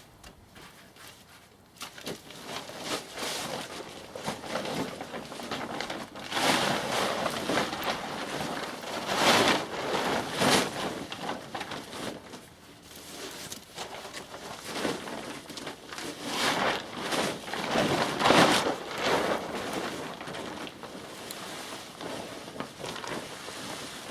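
Wood bonfire crackling and hissing with dense small pops. It starts about two seconds in and swells louder twice, in the middle and later on.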